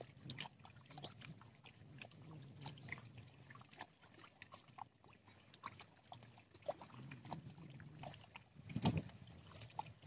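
Faint lake water lapping at the bank, with scattered light ticks and clicks at irregular spacing. A louder knock comes about nine seconds in.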